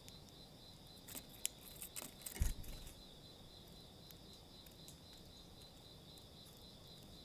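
Steady insect drone, a high buzz pulsing evenly. Between about one and three seconds in, a cluster of sharp clicks and a low thump, loudest near the middle, as a tree sparrow hops about on the plastic feeder tray close to the microphone.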